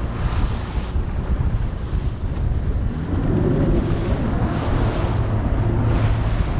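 Wind buffeting the microphone over the wash of the sea, with a low steady hum coming in about three seconds in.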